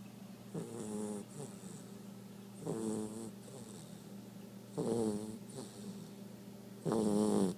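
Two-month-old Great Dane puppy snoring in its sleep: four snores about two seconds apart, the last the loudest.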